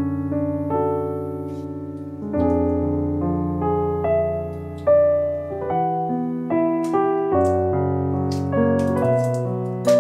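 Background piano music: a slow melody over held low chords.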